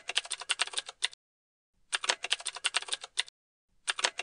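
Computer keyboard typing: quick runs of keystrokes, about ten a second, each run lasting a second or so, with short pauses between runs. A new run starts near the end.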